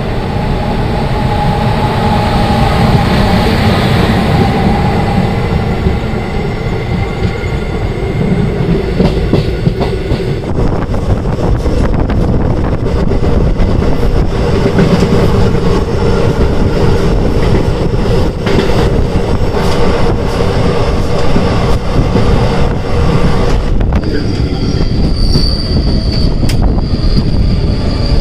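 Express train running at speed: a loud, steady rumble of wheels on rail, with wheel squeal and the clatter of wheels over rail joints. A high-pitched squeal comes in a few seconds before the end.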